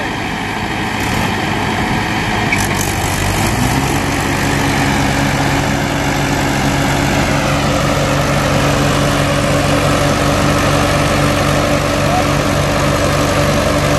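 Two Mahindra tractor diesel engines working hard under load as one tows the other, which is stuck in deep sand. About four seconds in, the engine note rises and then holds steady.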